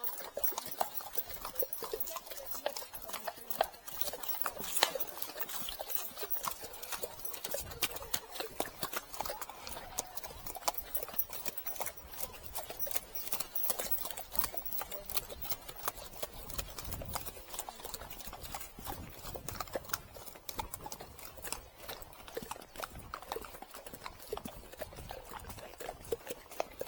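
Hooves of a Friesian horse clip-clopping steadily on the track, a constant stream of hoof clicks.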